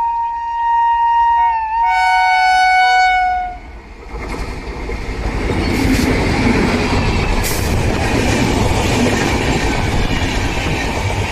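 A WAP-4 electric locomotive sounds its horn in two tones, a higher note and then a lower one, cutting off about three and a half seconds in. Then the LHB-coach express passes close by with a loud, steady rush of wheels on rails.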